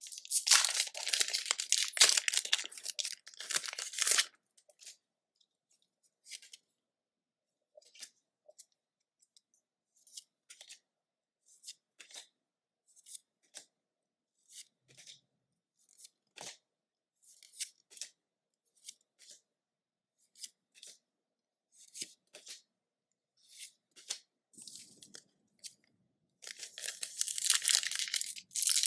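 Foil booster-pack wrapper crinkling and tearing open for about four seconds, then soft short clicks about once a second as trading cards are handled one at a time, then the crinkling of foil wrapper again near the end.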